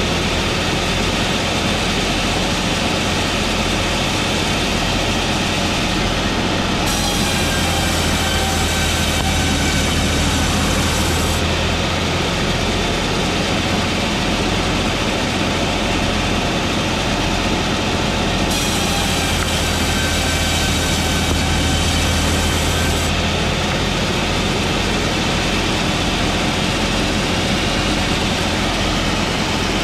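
Electric saw running steadily, a loud continuous machine whine and rumble with several steady tones.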